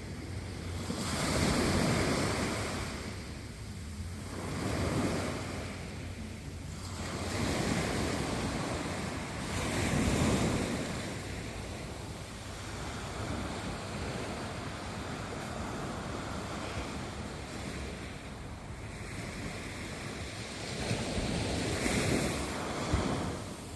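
Ocean waves breaking and washing in, swelling and fading in surges every few seconds, with wind rumbling on the microphone.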